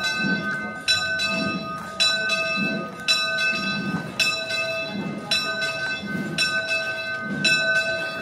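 Church bell ringing, struck about once a second, each stroke ringing on into the next.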